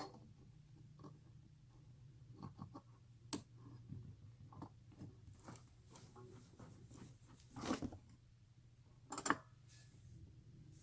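Hand crimping tool working the final crimp onto a plastic 12-gauge shotgun shell: scattered clicks, taps and scraping of tool and shell, with a sharp click at the very start and two longer scrapes in the second half. A faint steady low hum runs underneath.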